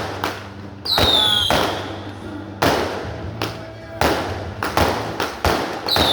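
Fireworks going off in a rapid, irregular series of loud bangs, about a dozen in all, with a high whistle gliding downward about a second in.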